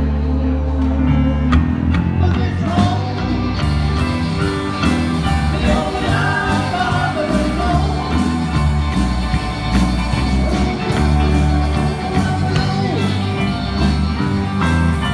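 Amplified live rock band playing: an electric bass line, drums with a steady cymbal beat, and keyboard under a lead melodic line.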